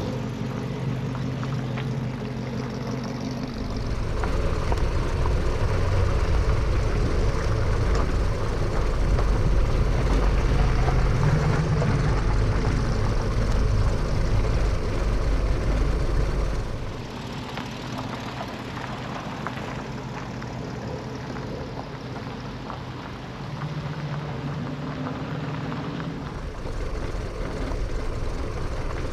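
Classic car engines running as cars pull out and drive past one after another, in several short shots. The loudest stretch, a deep rumble, lasts from about four to seventeen seconds in.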